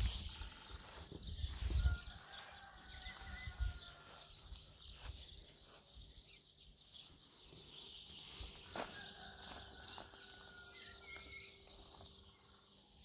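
Faint rural outdoor ambience with distant birds chirping, and a few low thumps in the first two seconds.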